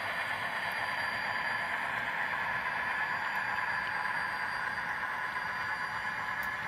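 HO scale model freight cars rolling along the track, a steady hiss of small metal wheels on the rails.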